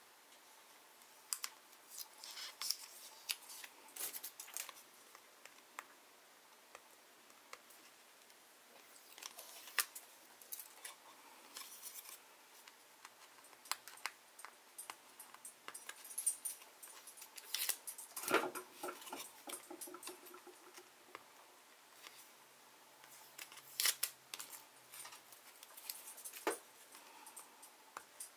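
Paper protective backing being picked and peeled off a clear acrylic stamping block with the fingers: irregular scratching, rustling and small clicks of nails and paper on the acrylic, with a sharper knock about two-thirds of the way through.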